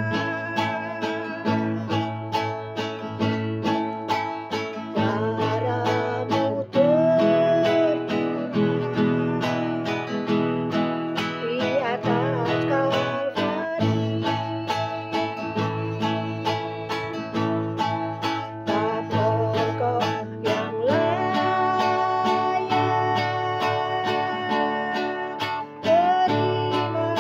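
A woman singing a slow song to her own strummed classical guitar: a steady even strum under her voice, with long held notes about a third of the way in, again past the middle, and near the end.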